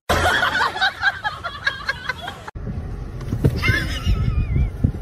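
A person's voice, chuckling or talking, then a sudden cut to low rumbling noise inside a car, with wind on the microphone and a short wavering high sound about four and a half seconds in.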